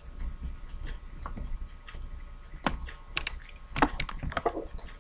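Light, scattered clicks, about seven spread irregularly and bunched in the second half, over a faint low hum.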